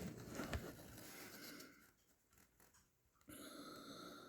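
Near silence: faint rustling of the knife being handled and measured, then a faint steady hiss near the end.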